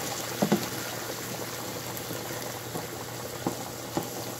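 Chicken broth and vegetables bubbling in a frying pan as a spoon stirs them, with a pot of pasta water boiling alongside. A few light knocks of the spoon against the pan, one about half a second in and two near the end.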